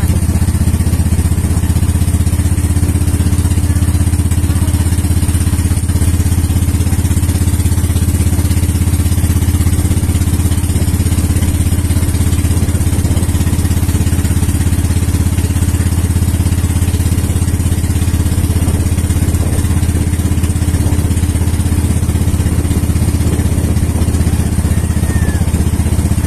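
Bangka outrigger boat's engine running steadily underway, a loud, even low drone.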